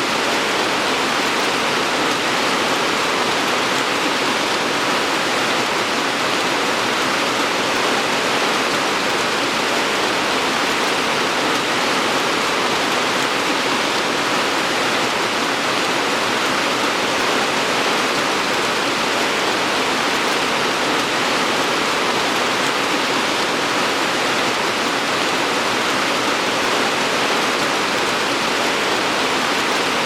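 Steady, heavy rain falling, a continuous even hiss of drops with no individual strikes standing out.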